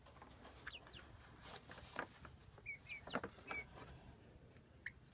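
Young silkie chickens making a few soft, short chirps, mixed with faint light taps and clicks.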